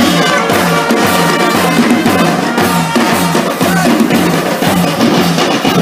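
School brass band playing: snare drums, a bass drum and hand cymbals keep a steady beat of about two a second under trumpets and trombones.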